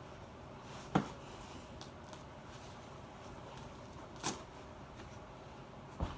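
Snips cutting through the metal hog rings that hold a seat cushion to the seat frame: three sharp clicks a few seconds apart, the loudest about a second in, over a low steady hiss.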